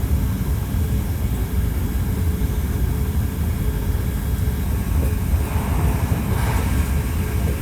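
Inside a Hankyu 1300 series electric train running along the line: a steady low rumble of wheels on rail, with a faint constant hum over it.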